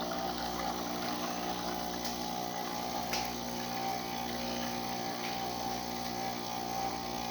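Breville dual boiler espresso machine's pump running steadily as it pulls an espresso shot, a continuous hum with two faint ticks a couple of seconds in.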